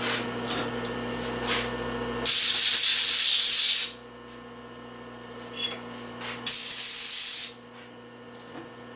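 Two loud blasts of compressed air, one of about a second and a half and a shorter one about four seconds later, blowing metal chips out of a freshly tapped spark plug hole in a cylinder head.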